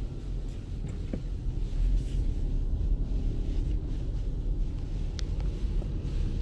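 Steady low rumble of a 2014 Jeep Grand Cherokee Summit driving on snow, with a few faint clicks.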